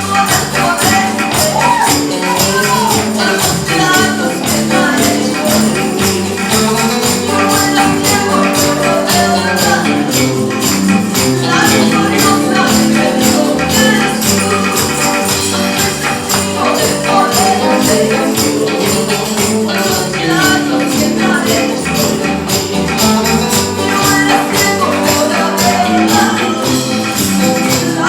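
Christian band music with a steady, fast percussion beat under a sustained melody.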